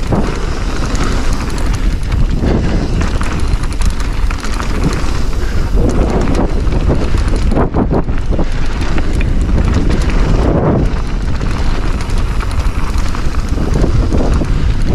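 Mountain bike riding fast down a hard-packed dirt trail. Wind buffets the microphone over the steady rumble of the tyres, with frequent short knocks and rattles from the bike over bumps.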